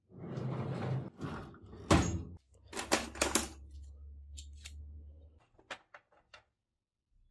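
Objects being handled: a rustle, then a series of sharp knocks and clicks, with a low steady hum for about three seconds in the middle.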